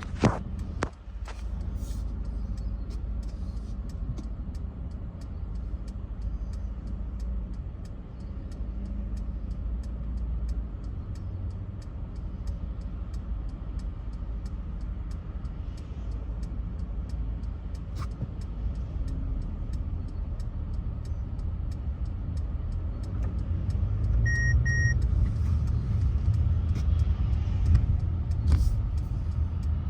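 Steady low rumble of car road noise, growing louder about 24 seconds in, with a brief electronic beep just before that.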